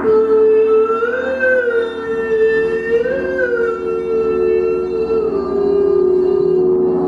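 Crystal singing bowls ringing with steady held tones, under a wordless held vocal tone that swells up in pitch and back down twice.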